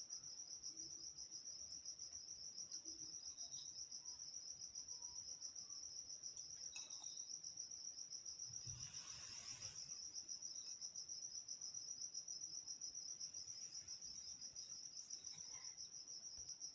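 Cricket trilling steadily, a fast-pulsed high-pitched tone, faint. A brief soft hiss comes about nine seconds in.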